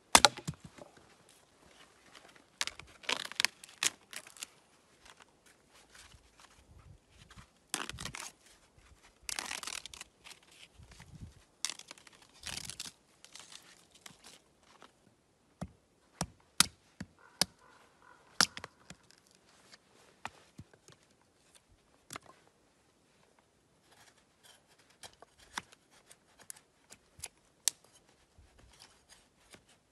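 A sharp wooden knock at the start, then birch bark being torn and peeled by hand from split firewood in several rasping bursts. In the second half, scattered light clicks and cracks as a knife works into a thin stick of kindling on a chopping block.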